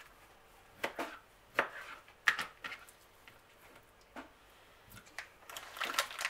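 A kitchen knife cutting cooked beetroot on a plastic cutting board: a few separate sharp knocks as the blade meets the board. Near the end, the plastic beetroot packet crinkles as it is handled.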